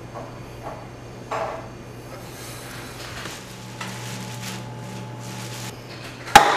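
A cup knocking lightly on a bar counter a few times, some rustling, then one loud, sharp bang near the end as it is set down hard, with a brief ring after it. A steady low hum runs underneath.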